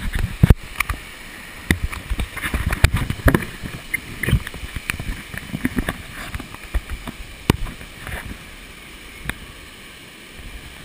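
Wind buffeting a small camera's microphone during a zip-line run, an uneven low rumble broken by clicks and knocks of the harness and gear. A steady rush of falling water runs underneath, and the rumble dies down about eight seconds in.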